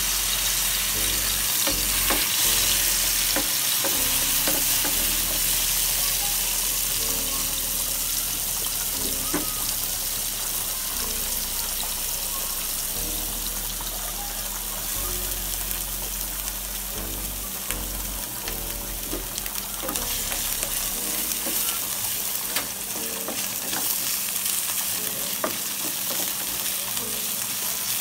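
Diced chicken and mushroom sizzling in oil in a nonstick frying pan, with a steady frying hiss. A wooden spatula stirs and scrapes the pieces, making scattered clicks against the pan.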